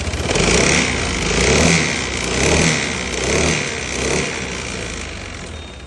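Honda ADV 160 scooter's single-cylinder engine running and being blipped, revs rising and falling about once a second and easing off near the end, with the abnormal engine noise that the mechanic takes for a seized piston.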